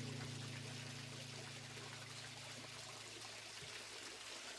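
A small stream trickling and splashing over granite rocks, a steady faint rushing. The last held guitar chord of the closing music dies away under it about three and a half seconds in.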